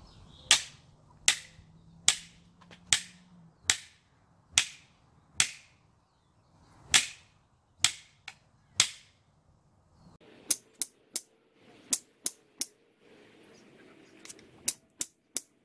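Old, unreinforced plastic box hockey stick blade slammed down on concrete again and again to break it: about ten sharp cracks, roughly one a second. After a short pause comes a faster run of shorter, sharper clacks in twos and threes, and the blade is still holding.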